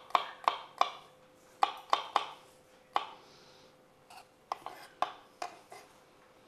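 Kitchen knife mincing garlic on a wooden cutting board: sharp chops striking the wood, quick at first (about three a second), then spaced out with pauses, and lighter taps near the end.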